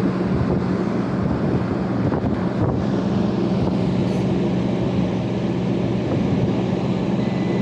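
Package air-conditioning unit running, a steady mechanical hum with a broad rush of fan air.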